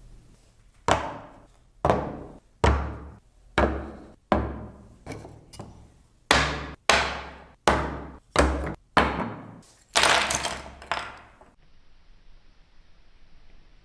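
About a dozen sharp hammer blows on wood, struck a little under a second apart, each dying away quickly, with a denser run of strikes near the end.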